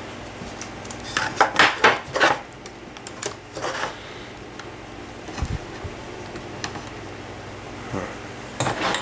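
Small hard objects clattering and clicking as they are handled, in several short bursts, with a dull thump about five and a half seconds in.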